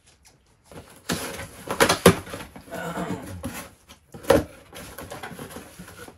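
Cardboard boxes and their contents being handled: rustling and scraping with a few sharp knocks, the loudest about two seconds in and another about four seconds in.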